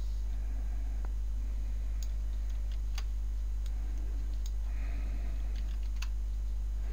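A few separate, sharp computer mouse and keyboard clicks, about one a second, over a steady low hum.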